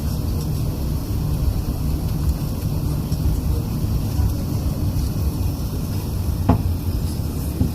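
Low, steady rumble of an Airbus A380's jet engines heard at a distance, with a single short knock near the end.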